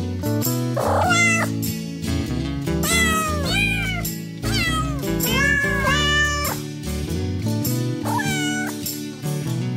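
Cat meows, about eight short rising-and-falling calls, over background music with steady low notes.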